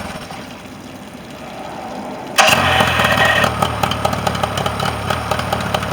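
Mercury 40 outboard motor: the running engine dies away, then about two and a half seconds in it starts abruptly with a high whine lasting about a second and settles into a steady idle.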